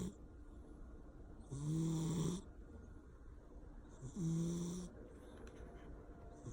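Persian cat snoring loudly, two snores about two and a half seconds apart, each lasting under a second.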